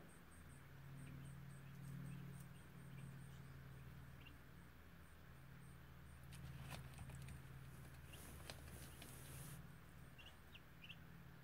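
Very quiet: a low steady hum, with a few faint, short peeps, several near the end, from Muscovy ducklings hatching under the brooding hen. A brief soft hiss comes about eight seconds in.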